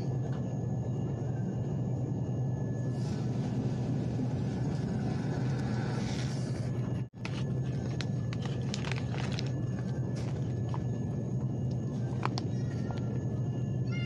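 Steady low hum and rumble of a supermarket's background noise, with a few faint clicks. The sound cuts out for an instant about seven seconds in.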